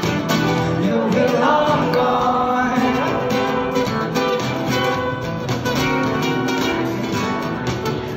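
Acoustic guitar strummed and picked steadily under a man's singing voice, live at a microphone.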